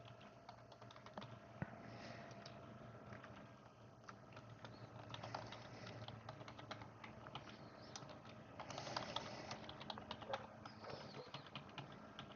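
Computer keyboard typing faintly: irregular keystrokes as a password is entered, with a busier run of keys about two-thirds of the way through.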